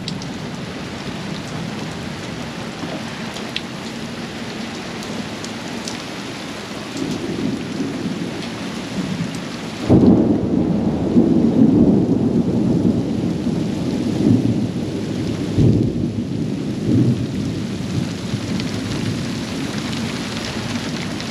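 Thunderstorm: rain hissing steadily, then about halfway through a loud low rumble of thunder sets in suddenly and rolls on for several seconds before easing.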